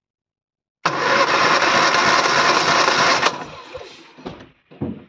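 Morris Minor A-series engine cranked over on its starter motor with the spark plugs out, for a wet compression test on cylinder four. It runs for about two and a half seconds and then stops abruptly. A few faint knocks follow.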